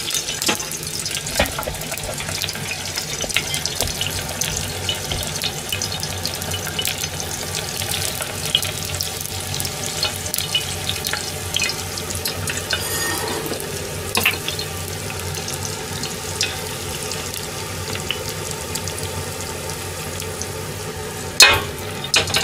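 Garlic frying in hot olive oil in a tilted stainless-steel pot over a gas flame: a steady sizzle with small crackles and pops. A single sharp clank near the end.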